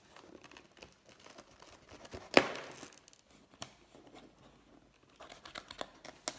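Plastic packing straps on a cardboard box being cut with a small blade: scratching and rustling against the cardboard, a loud snap about two and a half seconds in, a sharper click about a second later, and a quick run of small clicks and scrapes near the end.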